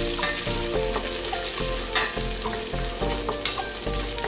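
Minced garlic and crab paste in soybean oil sizzling in a hot stainless steel pot while a spoon stirs them, with short scrapes of the spoon against the pot.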